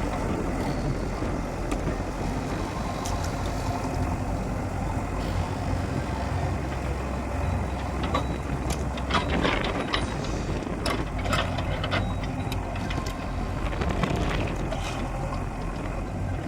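A JCB backhoe loader's diesel engine runs steadily while it demolishes a structure, with scattered knocks and clatters of the bucket and rubble, most frequent past the middle.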